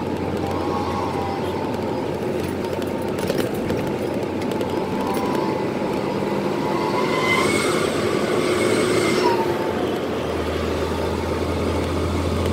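Twin-turbo diesel truck engine pulling along the road, heard from inside the cab: steady engine and road noise with a wavering turbo whistle that climbs higher about seven seconds in, and a low hum that grows stronger near the end.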